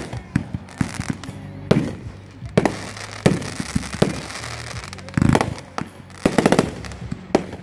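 Fireworks going off: a string of sharp bangs from bursting shells, with bursts of rapid crackling about five seconds in and again about six and a half seconds in.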